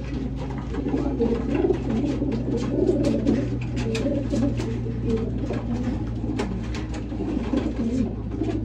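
Many racing pigeons cooing at once in a small loft, a continuous overlapping murmur of low coos, with scattered sharp clicks and a steady low hum beneath.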